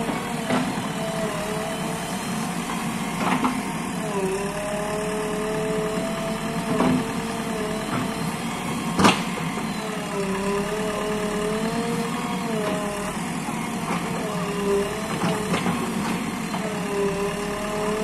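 JCB backhoe loader's diesel engine running, its note dipping and rising every few seconds as the hydraulic backhoe arm is worked. A few sharp knocks sound over it, the loudest about halfway through.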